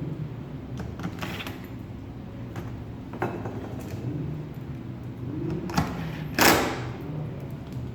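Screws being fitted and tightened by hand into a clay 3D printer's bat: scattered small clicks, scrapes and a creak over a low steady hum, with one louder scrape about six and a half seconds in.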